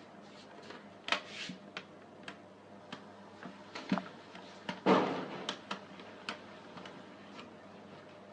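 Plastic housing parts of a steam iron clicking and knocking as they are handled and fitted back together, a dozen or so sharp clicks with a louder knock about five seconds in.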